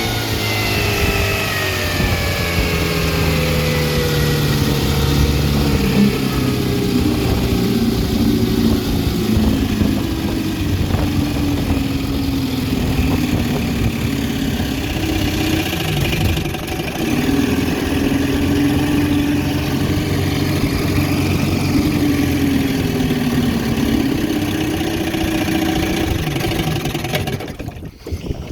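1962 Scott-Atwater-built Wizard 14 hp two-stroke outboard motor running. Its pitch falls over the first few seconds as it is throttled down, then wanders up and down at low speed: an uneven idle that the owner says still needs dialing in.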